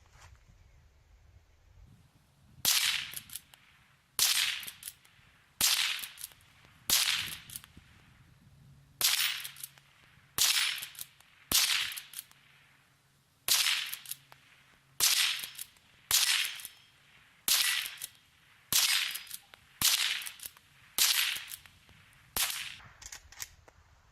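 Henry lever-action .22 LR rifle firing a quick string of about fifteen shots, roughly one every second or so, with a couple of slightly longer pauses between them. Each shot is a sharp crack.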